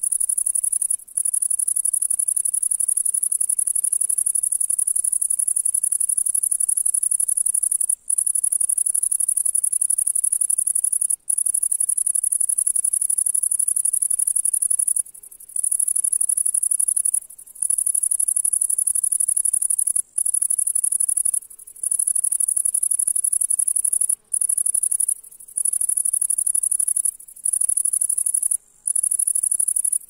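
A bush-cricket (grasshopper) singing: a continuous, very high-pitched buzzing trill, broken by brief pauses every few seconds.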